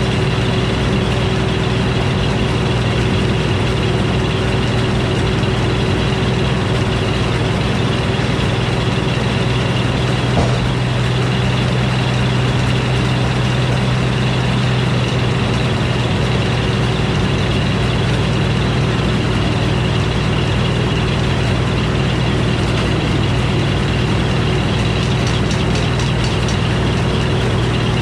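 An old Frick sawmill and its power unit running steadily with an even engine drone, with a single light knock about ten seconds in.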